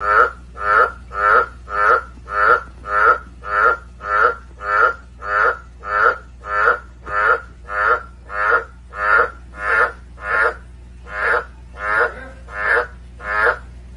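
A frog calling: a long, regular series of short croaks, about one and a half a second, slowing slightly before they stop near the end.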